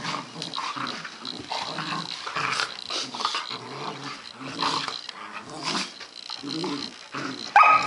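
Dalmatian and German shorthaired pointer puppies growling at each other in play-fighting: a run of short, rough growls, with one louder, sharper high call near the end.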